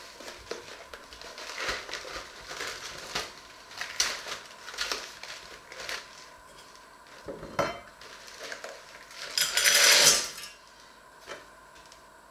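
Cardboard carton of frozen mixed vegetables being opened and handled, with scattered clicks and rustles and a sharp knock. Near the end the frozen vegetable pieces are tipped into a stainless steel saucepan and rattle into it, the loudest sound.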